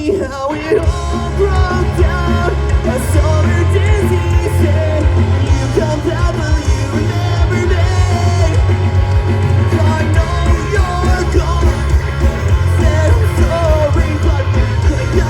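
Punk rock band playing live at full volume, a singer singing and shouting over electric guitars and a heavy low end. The band drops out for an instant right at the start, then comes back in.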